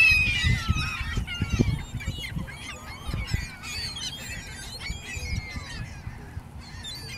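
A flock of ring-billed gulls squabbling over food, many harsh calls overlapping one another. The calling is loudest and densest at the start and thins out after about two seconds as the birds settle.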